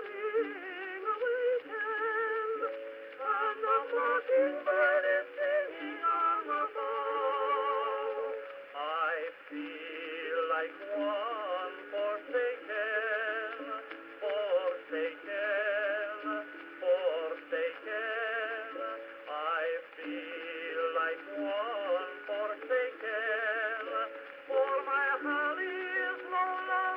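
Early acoustic recording of a soprano and tenor duet with orchestra accompaniment, played back from an Edison Blue Amberol wax-type cylinder on a cylinder phonograph. The sound is thin and narrow, with no deep bass and no top, and it carries wavering vibrato notes.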